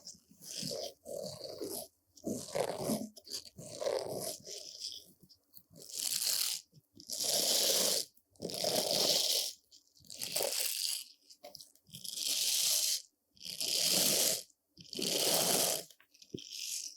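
Brush bristles sweeping over a surface: quick, irregular scratchy strokes for the first few seconds, then about seven long, even, hissy strokes a little over a second apart.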